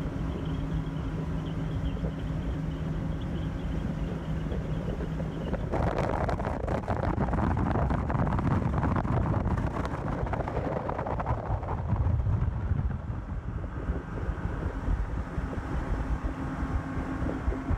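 Twin Yamaha 250 hp outboard engines driving a boat at speed, a steady hum with wind on the microphone. About six seconds in, a louder rush of wind and water noise takes over, with the engines still humming beneath it.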